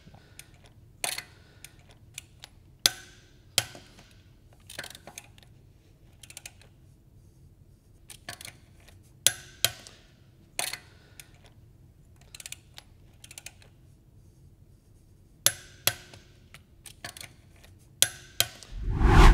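Click-type torque wrench clicking as each wheel lug bolt reaches its set torque during the final star-pattern tightening. Sharp metallic clicks come every few seconds, several in quick pairs about half a second apart, with fainter clicking between them.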